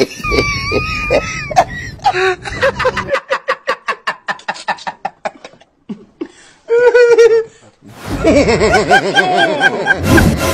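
Human laughter: a quick run of rhythmic "ha-ha-ha" pulses that speed up and fade out about halfway through, then more laughing with a wavering pitch near the end.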